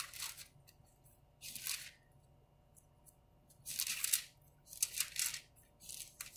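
Thin paper pages of a Bible rustling as they are turned, in about five short swishes.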